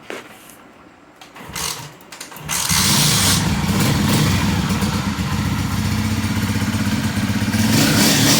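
Honda CG 125's single-cylinder four-stroke engine started after a few strokes, catching about two and a half seconds in and then running steadily. It runs on newly fitted tappet rods that replaced worn ones blamed for its noise.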